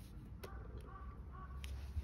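A bird calling three short notes in quick succession, with a sharp click just before and a low rumble underneath.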